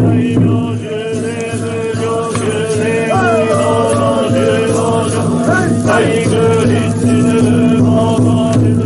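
Group of Buddhist mountain monks chanting in unison, a steady droning chant, with light rattling clicks over it and a few voices sliding in pitch near the middle.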